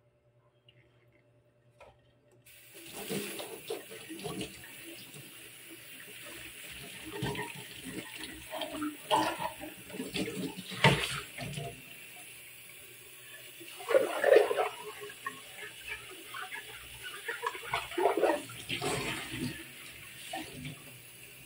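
Tap water running into a stainless steel sink, starting about two and a half seconds in, with irregular splashes as a clear plastic water-purifier filter housing is rinsed of soap under the stream.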